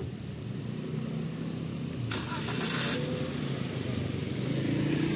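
A motor vehicle's engine running with a steady low rumble that slowly grows louder. A burst of hiss lasting about a second comes about two seconds in.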